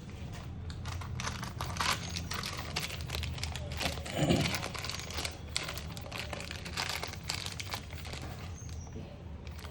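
Irregular clicks, taps and crinkling rustle, as of things being handled, over a steady low hum, with one brief louder low thud about four seconds in.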